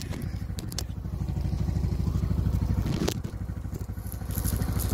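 Side-by-side utility vehicle's engine idling steadily, with a couple of light clicks early on and a short knock about three seconds in.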